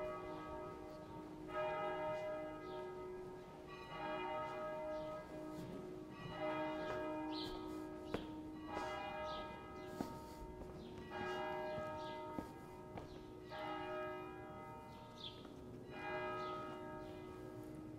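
A church bell tolling slowly and evenly, one ringing stroke about every two and a half seconds, each fading before the next. A bird chirps briefly a few times.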